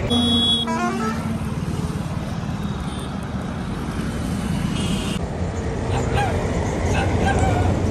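Highway traffic passing close by, a truck among it, as a steady rush of road noise, with a brief high steady tone right at the start.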